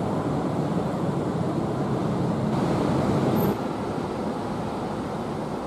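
Steady rumbling outdoor background noise that drops a little about three and a half seconds in.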